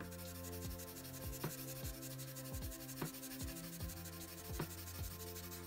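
Charcoal pencil scratching across paper in short, irregular strokes, each stroke tapping lightly, over soft background music of sustained held chords.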